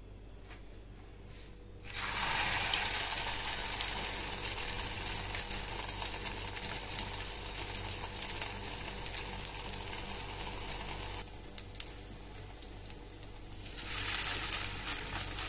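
Oats-and-potato tikki patties shallow-frying in a little oil on a flat iron tawa, sizzling with a steady hiss and fine crackles. The sizzle starts about two seconds in as the first patty goes in, dies down a little around eleven seconds, and rises again near the end as a second patty is laid in.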